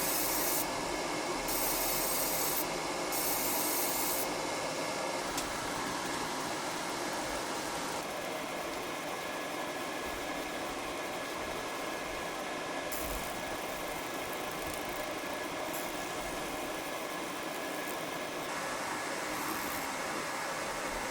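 Laser machine running steadily with a fan-like rushing noise and a faint high whine, removing coating from a pistol part. Three short bursts of loud hiss come in the first four seconds.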